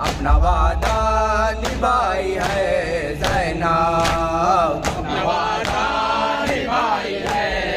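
Men singing a noha, an Urdu Shia lament, unaccompanied and in chorus into a microphone, with the hands of the mourners slapping their chests (matam) in a steady beat about every two-thirds of a second.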